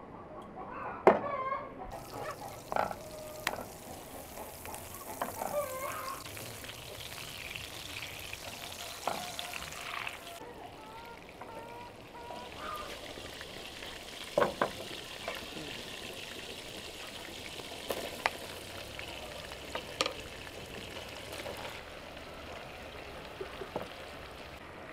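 Butter sizzling as it melts in a hot frying pan, stirred with a wooden spatula; the sizzle starts suddenly about two seconds in, with scattered sharp clicks and knocks.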